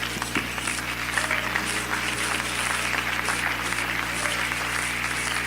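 Church congregation applauding, a dense irregular patter of many hands, over a steady held musical chord.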